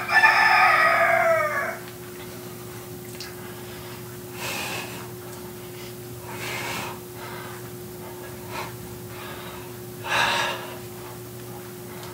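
A rooster crows once, a call of under two seconds at the very start. Later a person breathes out hard three times during squat exercise.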